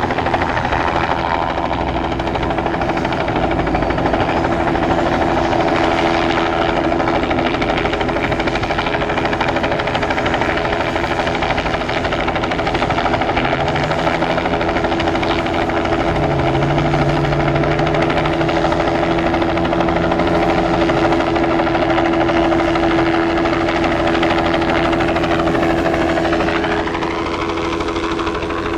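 Turbine helicopter hovering low and close overhead: a steady engine whine over the beat of the rotor. A lower tone rises briefly about halfway through.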